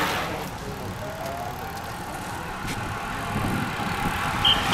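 Road racing bicycles swishing past at speed: one at the start, then two more going by together near the end, with a rising rush of tyre and wind noise. A few short high beeps sound at the very end.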